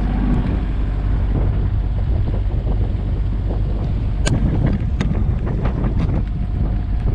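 Wind buffeting the microphone aboard a sailboat under way, a steady low rumble, with a few sharp clicks or knocks around the middle.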